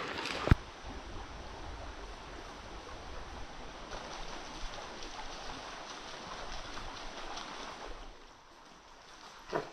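Brook water rushing steadily over rocks, with a sharp click about half a second in and a short thump near the end.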